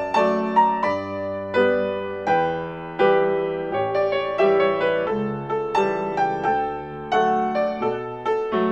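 Solo piano music: a gentle melody of struck notes over chords, each note starting sharply and dying away.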